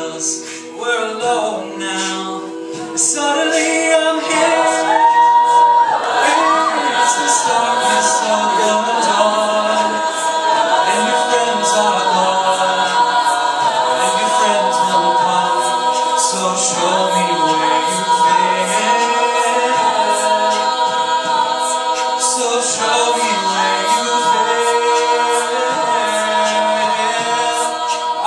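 A cappella vocal group singing close-harmony chords without instruments. The voices hold layered notes, and a lead voice slides up over the harmony about six seconds in.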